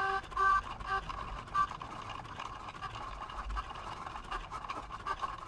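Cricut Joy cutting machine's motors whirring as it cuts Smart Vinyl without a mat: three short whirs about half a second apart, then a steady high whine.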